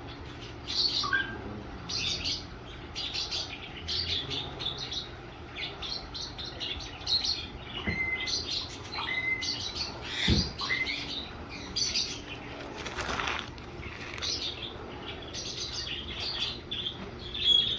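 Small birds chirping over and over in short high calls, with a few brief whistled notes about eight to ten seconds in. A single dull knock comes a little after ten seconds.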